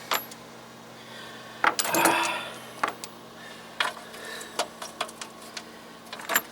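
Scattered metal clicks and clinks of sockets being tried on a small lock nut, with a louder rattling scrape about two seconds in.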